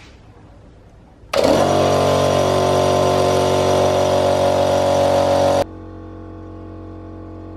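Small portable piston air compressor running uncovered, loud and steady, starting abruptly about a second in. Just over four seconds later it cuts to the same compressor running inside its sound-deadening wooden box, a much quieter steady hum.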